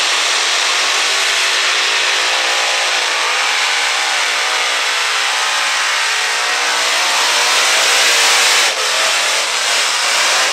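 Unlimited modified pulling tractor with several supercharged engines running flat out as it drags the weight-transfer sled. The engine note wavers mid-run, and the loudness dips sharply for a moment near the end.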